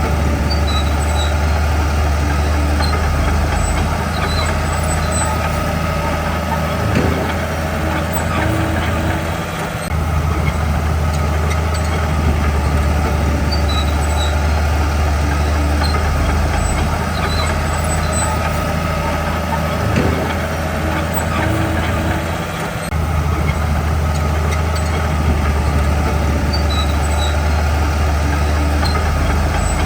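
Heavy diesel engine of a Komatsu D41P bulldozer running steadily under load, with a deep drone. The drone dips briefly twice, about ten seconds apart, as the work cycle repeats, with a faint knock before each dip and short high chirps recurring throughout.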